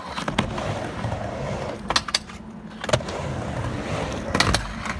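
Skateboard rolling on a wooden ramp, its wheels rumbling, with about four sharp clacks as the board's trucks and wheels strike the metal coping.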